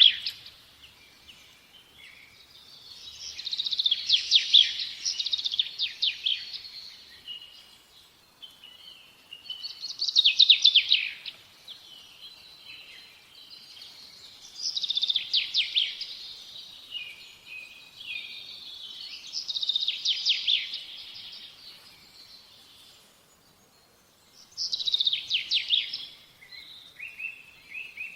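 Birdsong: phrases of rapid, high notes lasting a couple of seconds each, repeated about every five seconds, with fainter chirps between them.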